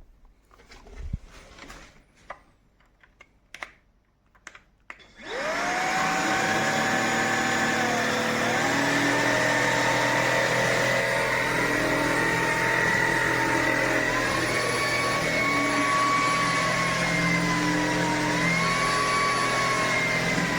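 A few light clicks and knocks of handling, then a cordless stick vacuum (Tineco A30S) switches on about five seconds in: its motor spins up with a quick rising whine and runs steadily, its whine shifting slightly in pitch now and then.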